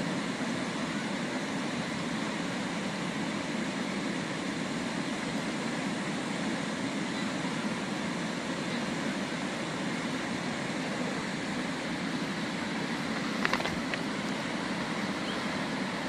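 Steady rushing of a shallow, rocky river flowing over stones, with one brief sharp click near the end.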